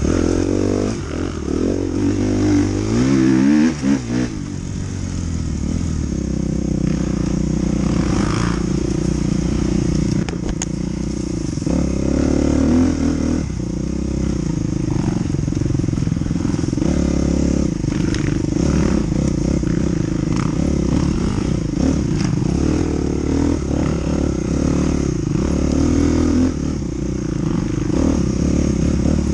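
Dirt bike engine running under the rider, revving and easing off as it rides a rough trail. The pitch climbs quickly about two to four seconds in, then drops.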